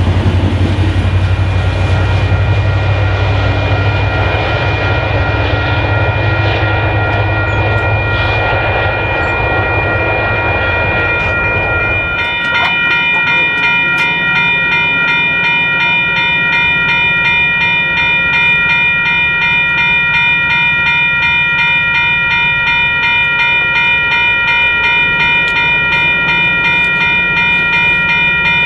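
A FrontRunner commuter train's MPI MP36PH-3C diesel locomotive passes with a low engine rumble, over the ringing of a grade-crossing bell. About twelve seconds in the rumble stops, and a railroad crossing bell rings loudly and steadily close by, with evenly repeated strikes, as the crossing gate comes down.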